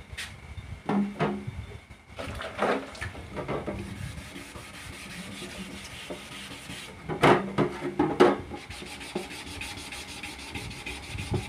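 Fine sandpaper on a hand sanding block rubbing back and forth over a resin-coated carbon-fibre mirror cover, levelling the cured resin coat under a sprayed guide coat. The strokes come irregularly, with two louder knocks of the part about seven and eight seconds in, and turn into quick, even strokes near the end.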